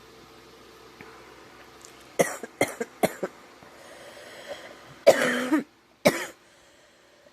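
A girl coughing: three quick short coughs about two seconds in, then two harder, longer coughs near the end. She has a scratchy, sore throat, which she puts down to a cold coming on.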